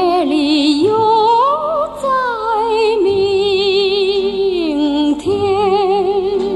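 A woman singing a Mandarin popular song with instrumental accompaniment, holding long notes with a wide vibrato and gliding between them.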